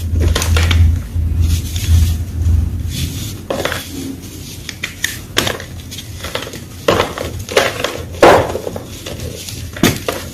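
Fresh white gym chalk being crunched: irregular sharp crackling crunches, coming thicker in the second half, over a low hum during the first three seconds.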